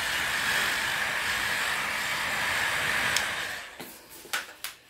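Hot-air blower running steadily with a hiss and a high whine, heating a phone's back panel to soften the glue. It winds down about three and a half seconds in, followed by a few sharp clicks.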